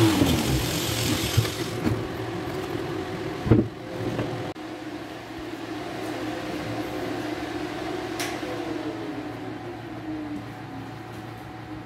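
Angle grinder switched off, its whine dropping quickly as the disc winds down, over a steady machine hum that runs on with a slow falling glide later. A single knock about three and a half seconds in.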